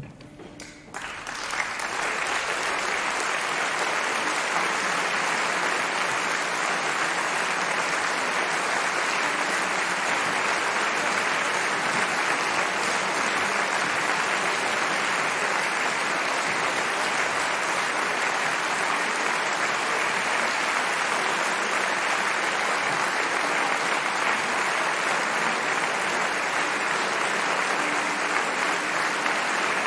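Audience applauding: applause breaks out about a second in, swells quickly and then stays steady and dense.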